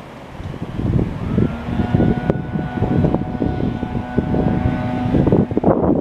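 Wind buffeting the microphone in irregular gusts, starting about half a second in. Under it, a faint steady tone of several pitches sounds from about one second to about five seconds in.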